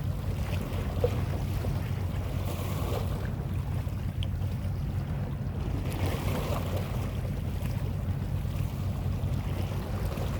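Outdoor seaside wind noise on the microphone over a steady low hum and the wash of the sea, unchanging throughout.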